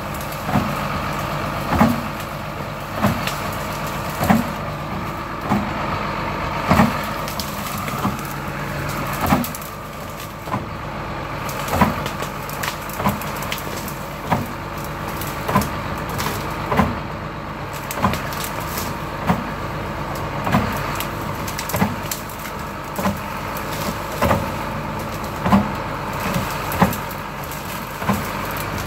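John Deere tractor's engine running steadily under load while its brush cutter works through saplings. Sharp cracks of branches snapping and splintering come roughly once a second.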